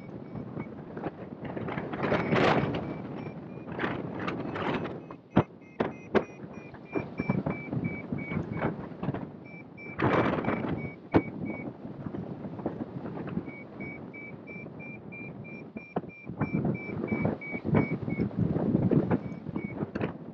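Wind buffeting the microphone of a hang glider in flight, in gusts, with a few sharp knocks. Over it, a flight variometer beeps a fast run of short, high beeps, the tone a pilot hears while climbing in lift. The beeping breaks off twice.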